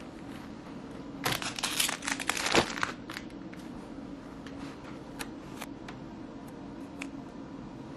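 Purple nitrile exam gloves being peeled off, a burst of crinkling and rustling about a second in that lasts a couple of seconds, followed by scattered light clicks and taps.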